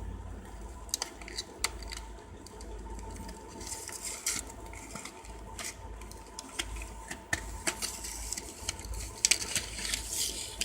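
Irregular small hard clicks and clatters as a fidget spinner is handled.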